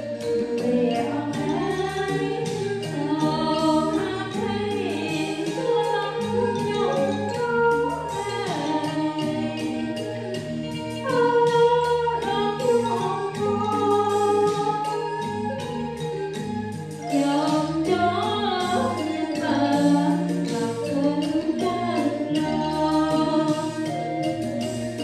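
A woman singing a gospel song into a microphone over instrumental accompaniment.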